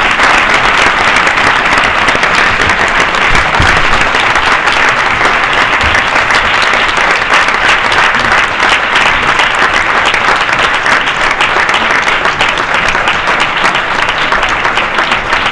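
Large audience applauding steadily: a dense, loud mass of hand-clapping that does not let up.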